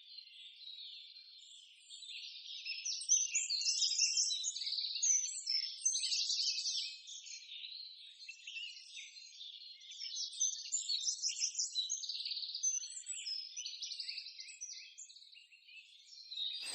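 Birds chirping in a chorus of many overlapping high calls and short trills, with no low sound under them. The chorus grows louder about two seconds in and fades briefly near the end.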